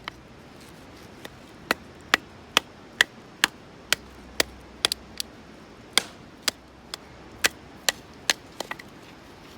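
Firewood being chopped with a run of sharp, evenly spaced strikes, about two a second, with a brief pause about five seconds in.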